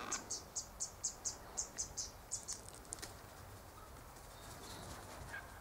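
A rapid series of short, high-pitched chirps, about four a second, that stops about three seconds in.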